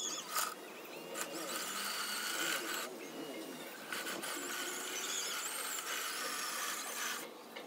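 Home-made remote-control metal bulldozer running, its small electric drive and metal tracks giving a high squealing, grinding noise that shifts unevenly.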